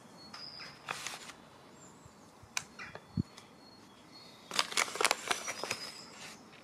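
Brown paper bag of milk paint powder crinkling as it is handled and opened, a dense run of crackles late on, with a single low knock a little earlier as a ceramic cup is set down on a wooden table.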